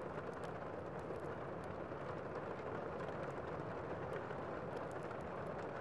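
Steady rain: an even hiss of falling rain, with faint scattered ticks.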